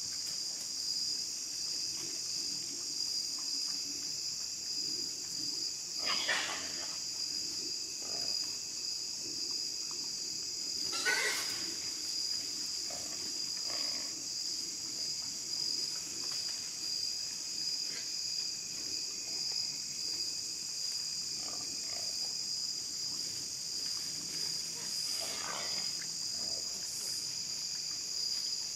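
Insects chirring steadily, with a few short squeals from a group of feral hogs. The loudest squeal comes about eleven seconds in, with others about six and twenty-five seconds in.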